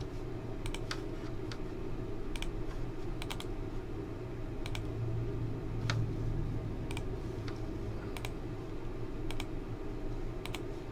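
Computer mouse clicking at irregular spacing, one or two clicks a second and often in quick pairs, over a steady low room hum.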